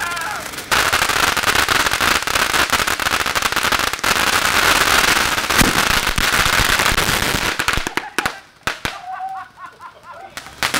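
Ground fountain fireworks spraying sparks: a loud hiss packed with dense crackling pops. It falls away about eight seconds in and starts again just before the end.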